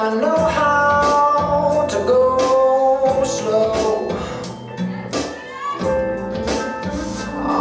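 Pop song with a steady beat and long held sung notes, the dance routine's music; it drops quieter for a moment a little past the middle.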